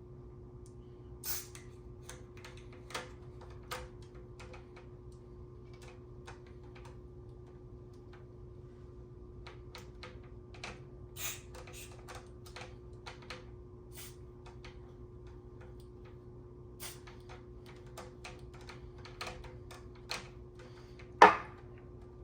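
Scattered light clicks and taps of hands working the knobs and switches on a Sansui QRX-7500 amplifier whose controls have just been sprayed with contact cleaner, over a steady low hum. One much louder click comes about a second before the end.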